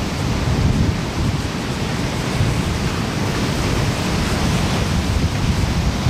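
Ocean surf breaking and washing up a sandy beach as a steady, loud wash of noise, with a low rumble of wind on the microphone.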